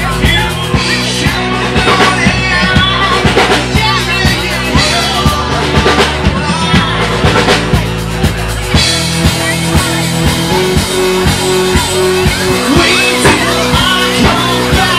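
Rock music with singing and a drum kit playing a steady beat; the low bass drops away about nine seconds in.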